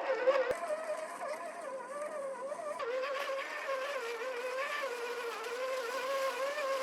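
Electric motor and gears of a 1/10-scale RC4WD Trail Finder 2 crawler, running as a steady buzzing whine whose pitch wavers up and down with the throttle.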